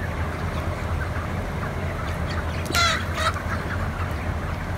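Dense chatter of a large flock of 33-day-old male broiler chickens over a steady low hum. Near the middle, one bird gives two louder squawks in quick succession.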